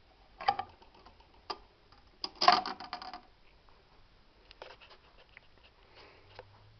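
Magnavox Micromatic four-speed record changer cycling on automatic: a series of mechanical clicks and clunks, the loudest a quick cluster about two and a half seconds in, with fainter clicks after it. A low steady hum comes in near the end.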